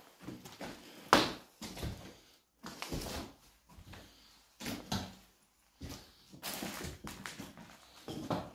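Footsteps crunching and scuffing over rubble and broken plaster on a floor, in irregular bursts with short pauses, the loudest about a second in.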